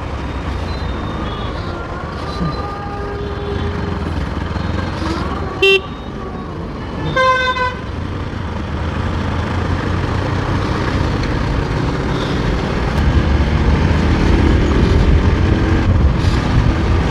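Motorcycle ride through city traffic on a Bajaj Pulsar NS200: steady engine and wind rumble, with a short horn blast about five and a half seconds in and a longer pitched honk a second and a half later. The rumble grows louder in the last few seconds.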